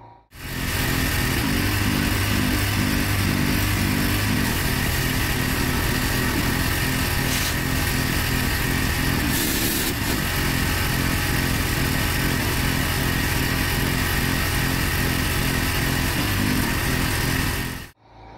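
Pressure washer running with its water jet hissing onto the block paving: a steady engine-like throb under a loud spray hiss. It starts abruptly just after the beginning and cuts off abruptly near the end.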